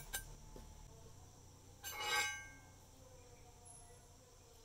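A brief metal scrape with a faint ring about two seconds in, from a steel bolt and a thin steel pin being handled against a steel plate.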